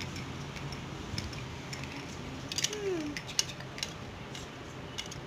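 Light clicks and taps of small plastic toys being handled and set down, scattered irregularly over a steady background hum, with one short falling squeak a little past halfway.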